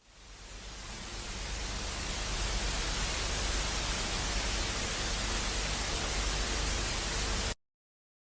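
Hissing static noise fades in over about two seconds, holds steady, then cuts off abruptly near the end.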